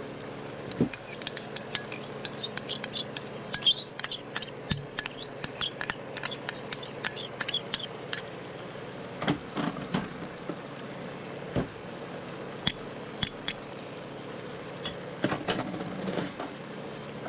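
Oil sizzling and crackling in a frying pan of sautéed onion, garlic and ginger with tomato sauce, many small pops in the first half. Scattered clinks and knocks of small bowls and utensils as oyster sauce and seasonings are poured in, a few of them louder.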